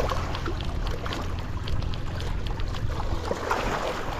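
Wind buffeting the microphone in a steady low rumble, with choppy lake water lapping along a rocky shore and scattered light ticks.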